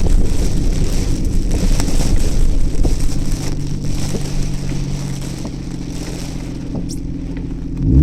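Car driving in typhoon wind and rain, heard from inside: a noisy rush of rain and wind over a low road rumble. About three seconds in the rush eases and a steady engine hum comes through.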